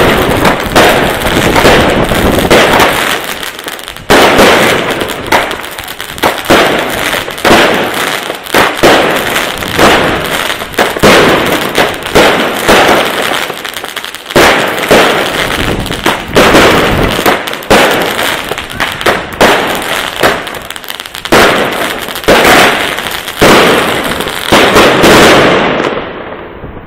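Royal Fireworks 'Gate of Heaven 3' consumer fireworks cake firing shot after shot in quick succession, the sharp bangs over a continuous noisy rush. It dies away near the end.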